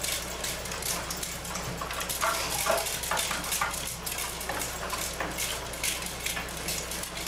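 Irregular clatter and rustling of small objects being handled, with a few brief high voice-like squeaks about two to three seconds in.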